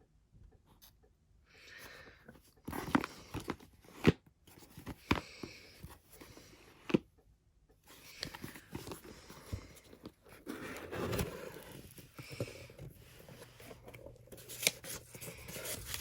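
A boxed music album being unwrapped by hand: plastic wrap crinkling and tearing, with irregular clicks and knocks as the package is handled.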